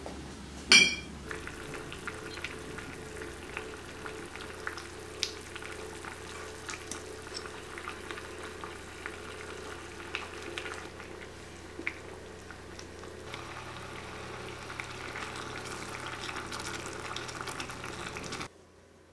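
Sauce simmering in a saucepan, bubbling with a steady hiss and scattered small pops while it is stirred. A single sharp ringing clink sounds about a second in.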